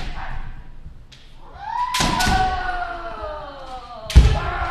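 Kendo sparring: sharp strikes of bamboo shinai on armour, and a long drawn-out kiai shout falling slowly in pitch about two seconds in. Near the end comes the loudest sound, a heavy thump of a strike landing with a stamp of a bare foot on the wooden floor.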